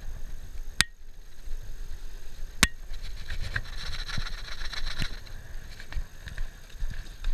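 Two sharp knocks about two seconds apart as a package of bees is banged down to knock the bees to the bottom for pouring into the hive, with a few lighter taps over a steady low rumble.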